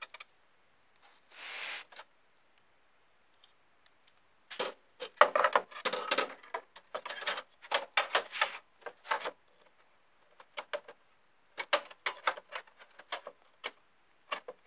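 Irregular clicks, taps and rattles of a graphics card being handled and lined up with the expansion slot in the metal case of an open desktop computer. A brief soft rustle comes about a second and a half in; the clatter is densest from about four and a half seconds, then thins to scattered sharp clicks.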